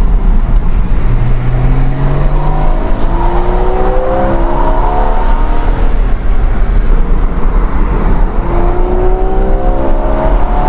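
Porsche Cayman's engine heard from inside the cabin, rising in pitch as the car accelerates, twice: once through the first half and again near the end, over a steady road and tyre rumble.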